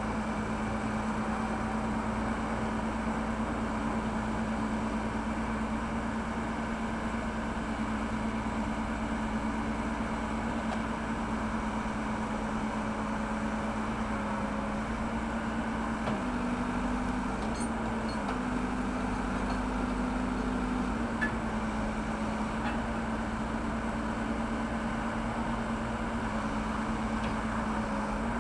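Backhoe loader's diesel engine running steadily while digging, its pitch stepping up twice for a few seconds in the middle of the stretch as the engine takes load.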